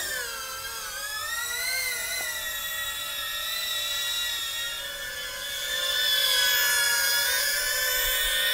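iFlight Defender 16 sub-250 g 2S cinewhoop in flight: the high-pitched whine of its motors and propellers, the pitch wavering up and down with the throttle, louder from about six seconds in.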